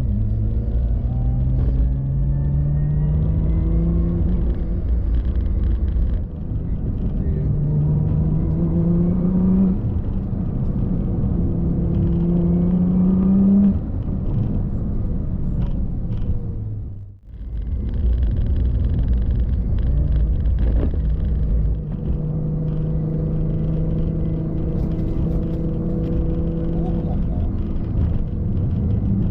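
Car engine under way: it climbs in pitch several times and drops back between gear changes, then holds a steadier drone while cruising. This is a test drive after the rattling front drive shaft was replaced, and the engine is heard steady, with no clunk standing out over it.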